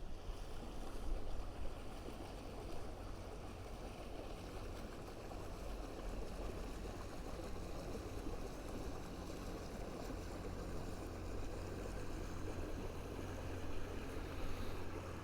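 Wind buffeting the microphone outdoors: a steady low rumble with an even rushing hiss over it.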